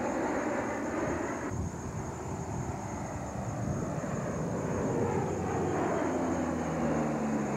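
A fixed-wing aircraft's engines running, heard as a steady noisy rush with faint engine tones that slide slowly lower near the end.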